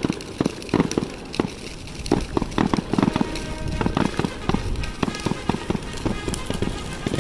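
Fireworks going off in a quick, irregular run of sharp bangs and pops. Background music with steady tones comes in about halfway through and grows stronger.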